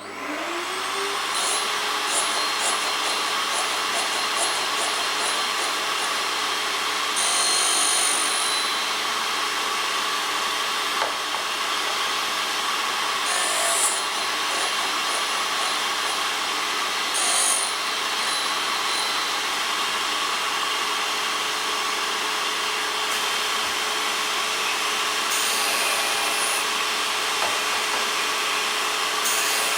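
Drill grinding machine's motor spinning up, then running steadily with a hum, while the grinding wheel rasps against a drill bit. A few short, harsher bursts of grinding come through along the way.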